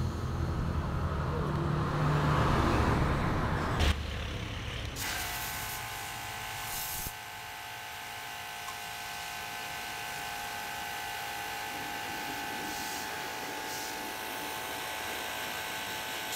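A low rumble ending in a sharp knock, then from about five seconds in a pressure washer runs with a steady motor whine and a hissing water jet, spraying a car aircon evaporator coil clean.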